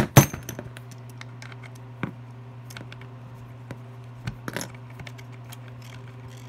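Two sharp metallic clinks at the start as small hand tools are handled and set down, then a few light scattered ticks as fingers work the loosened nozzle out of a butane torch.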